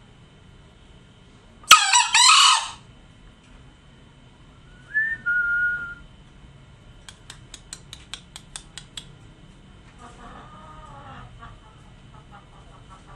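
Green junglefowl crowing: one loud, harsh, short crow about two seconds in, then a shorter high note a few seconds later. A quick run of faint ticks follows, and fainter calls come near the end.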